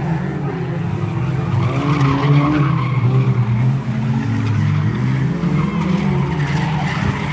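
A pack of small 1600-class race cars running hard around the track, several engines at once, their pitch rising and falling as they accelerate and back off.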